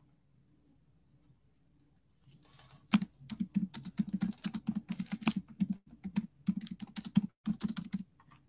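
Typing on a computer keyboard: a quick, uneven run of key clicks starting about three seconds in and lasting about five seconds, with two brief pauses.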